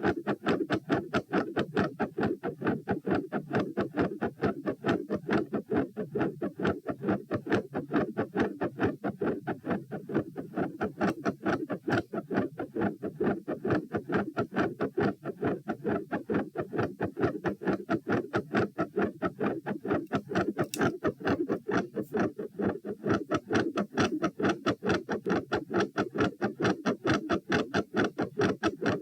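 Human heart sounds recorded on the chest, beating fast and regularly at about 132 beats a minute while standing. The uploader labels the recording as having a third heart sound and a fixed split second heart sound with a murmur.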